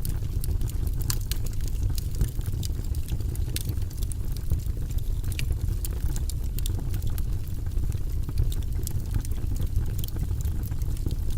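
Wood fire burning in a fireplace: a steady low rumble of flames with frequent sharp crackles and pops, irregularly spaced.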